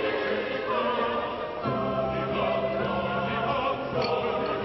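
Music with a choir of voices singing together, over a low chord held through the middle.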